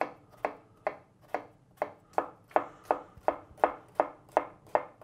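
Chef's knife finely chopping tomatoes on a wooden cutting board: a steady run of knocks of the blade on the wood, about two to three a second, getting slightly quicker.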